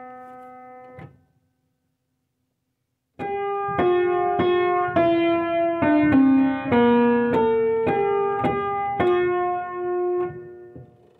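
Piano playing a hymn's alto part. A held chord fades and cuts off about a second in, followed by two seconds of silence. The notes then resume at about two a second, and the last note rings out and fades near the end.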